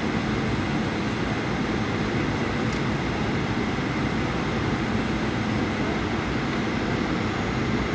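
Steady cabin noise of a Boeing 737-800 in flight: rushing airflow mixed with the hum of its CFM56-7B engines, heard from inside the passenger cabin.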